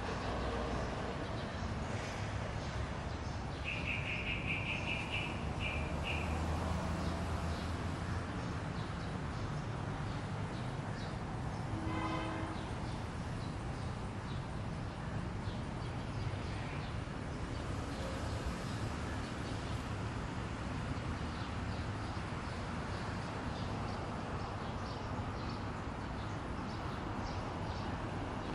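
Birds chirping and insects over a steady hum of road traffic. About four seconds in comes a quick run of high repeated notes, and around twelve seconds a short pitched call. Brief high chirps are scattered through the rest.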